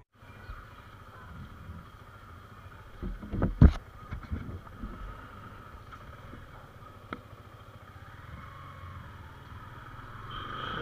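Yamaha R15 V3's single-cylinder engine running steadily at low speed, heard from the rider's seat, with a few louder knocks about three and a half seconds in.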